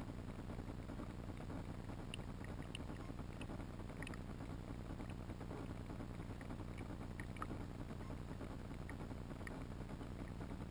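Underwater ambience picked up by a GoPro in its waterproof housing on a riverbed: a steady low water noise with scattered faint ticks, a few each second.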